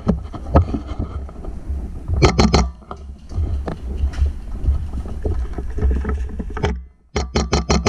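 Airsoft rifle firing: a rapid string of about five shots around two seconds in and another string of about eight shots near the end, over heavy rumbling handling noise on a camera mounted on the gun.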